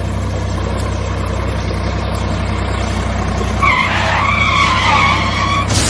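Tractor engine running steadily with a low hum. A wavering high squeal, like tyres skidding, comes in about three and a half seconds in.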